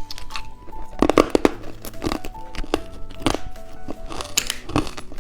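Plastic candy wrapper being crinkled and torn open in several sharp bursts, over light background music.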